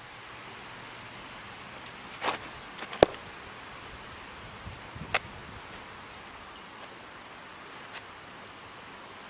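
A few sharp smacks of a softball into a leather glove, the loudest about three seconds in and another about two seconds later, over a steady outdoor hiss.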